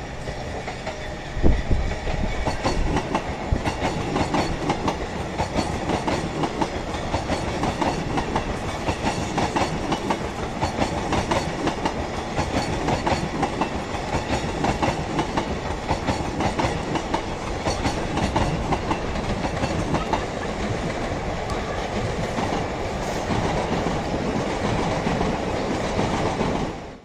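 Train running on the rails: a steady clatter of wheels over the track, with one sharp knock about a second and a half in.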